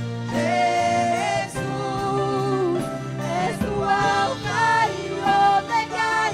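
Live worship band playing, with singers holding long, sustained notes and sliding between pitches over a steady bass.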